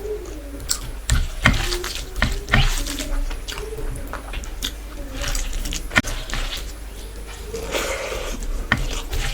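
Close-miked eating sounds: chewing and wet smacking of a saucy rice and chicken masala meal, with irregular clicks and squelches.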